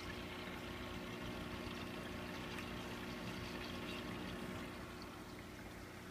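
Water gurgling and sloshing in a home aquarium as a phone is moved about under the surface by hand, over the steady low hum of the tank's filter pump. The watery sound swells at the start and eases off near the end.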